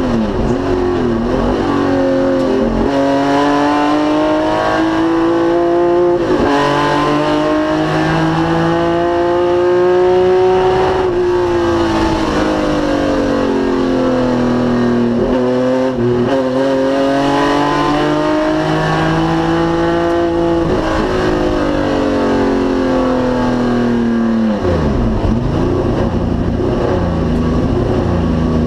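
1973 BMW 3.0 CSL race car's straight-six engine at full racing load, the pitch climbing through the revs and dropping sharply at each gear change, several times over, with stretches of lifting and braking.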